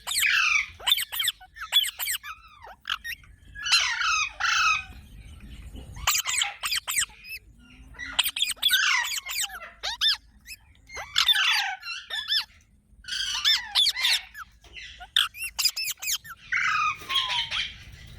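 Parrot squawking and chattering in a run of short bursts of harsh, pitch-bending calls, with gaps of a second or so between them.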